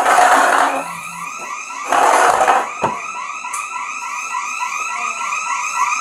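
Burglar alarm sounder going off in rapid repeating chirps, about four a second, triggered by a side door that police believe thunderstorm wind blew open. Two short bursts of rushing noise sound over it, right at the start and about two seconds in.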